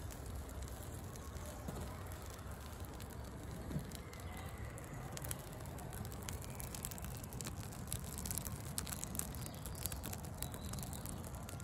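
Small fire of birch bark and wood shavings crackling softly, with scattered faint pops and ticks.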